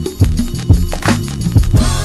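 Music with a strong drum beat, about two hits a second, over a steady bass line.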